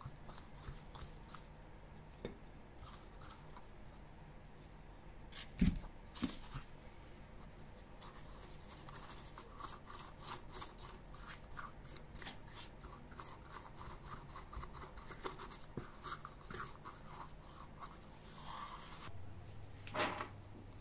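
Hand work at a bench: a run of small quick scrapes and clicks, busier after the first few seconds, with a sharp knock about six seconds in and another near the end, over a faint steady hum.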